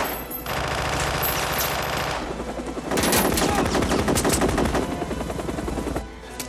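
Automatic submachine-gun fire in rapid bursts, heavier from about three seconds in and thinning out near the end.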